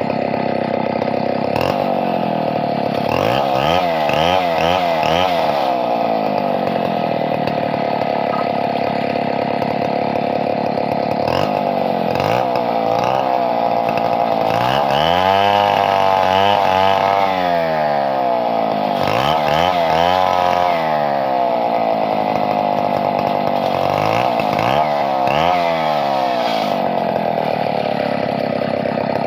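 Two-stroke chainsaw running at high revs without a break, its engine pitch sagging and recovering again and again, most deeply about halfway through.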